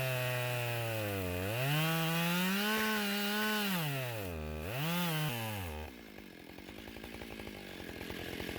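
Chainsaw running at high revs, its pitch sagging and climbing back several times, then dropping to a rough idle about six seconds in.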